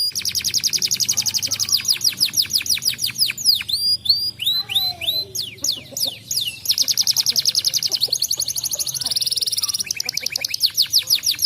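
Domestic canary singing: fast trills of repeated down-slurred notes, breaking into slower separate notes about four seconds in, then a very rapid buzzy roll near nine seconds before the trills resume.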